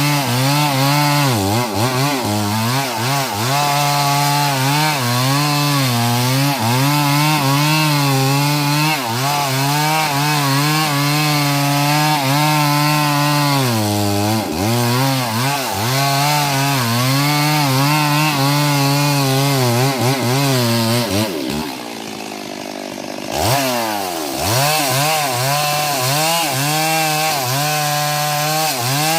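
Stihl MS 382 two-stroke chainsaw running at full throttle and cutting into wood, its pitch wavering as the chain bites and bogs under load. About three quarters of the way through, the throttle eases off and the engine drops to a lower, quieter pitch for a couple of seconds before revving back up into the cut.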